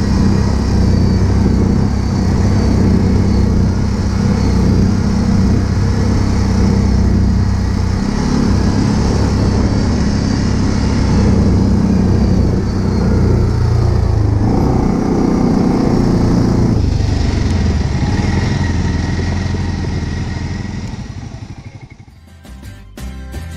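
ATV (quad bike) engine running steadily as the quad is ridden along a gravel dirt track. Its note dips and then rises about two-thirds of the way in. The engine fades out near the end and music comes in.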